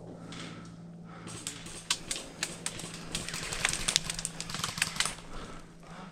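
Airsoft gunfire: a rapid, irregular string of sharp clicks and cracks from BBs being fired and striking nearby, starting about a second and a half in and thickest in the middle.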